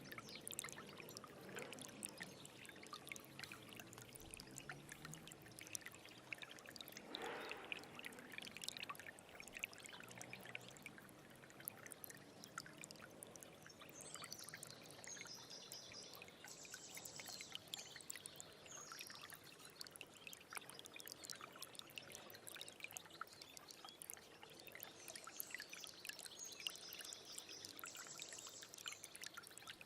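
Faint stream water trickling and babbling steadily, dotted with many small droplet splashes; high bird chirps twice, about halfway through and near the end.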